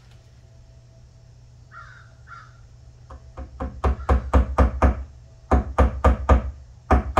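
A hammer tapping a small nail into the pine side of a wooden cabinet: three quick runs of sharp taps, about four a second, starting about three seconds in.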